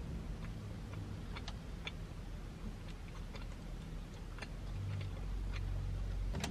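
Chewing a soft pastry with the mouth closed: faint, irregular mouth clicks over a low steady hum.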